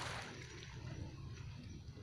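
Harbour water sloshing and lapping, with a brief rush of it right at the start, over a steady low rumble.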